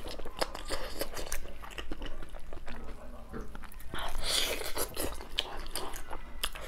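Eating braised pork on the bone: wet chewing and lip smacks heard as a run of quick clicks, with a louder bite and slurp about two thirds of the way in.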